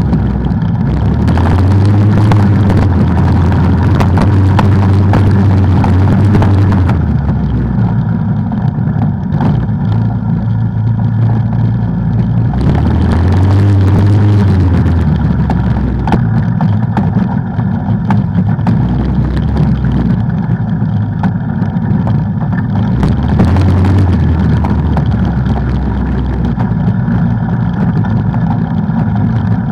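ATV engine running under load on an off-road trail, the throttle opening and easing off several times so the engine note rises and falls.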